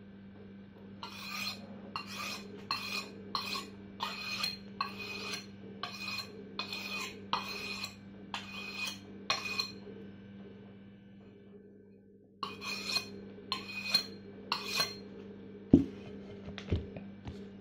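Stainless-steel kitchen knife being sharpened by scraping its edge across the bottom rim of an upturned ceramic pot: quick rasping strokes, about two a second, in two runs with a pause between. Near the end come two low thumps, the first the loudest sound here.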